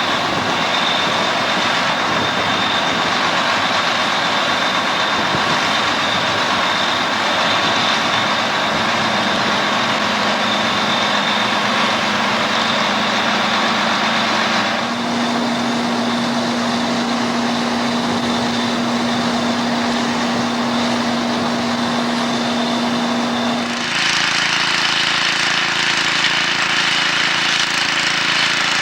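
Steady motor-vehicle engine noise with a droning hum, changing character abruptly about halfway through and again near the end.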